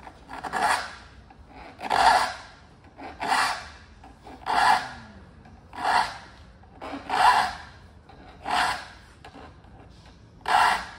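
Saw file being pushed across the steel teeth of a hand saw during sharpening, about two strokes per tooth. There are eight separate rasping strokes, roughly one every second and a third, with a longer pause before the last.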